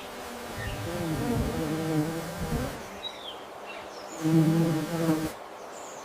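A flying insect buzzing, its hum wavering as it moves and coming back louder for about a second after the four-second mark; a few faint bird chirps come through.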